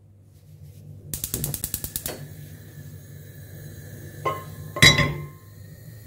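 Gas hob igniter clicking rapidly for about a second as a burner is lit. Later comes a soft knock and then a louder clank with a short ring as a pot is set down on the metal pan grate, over a low steady hum.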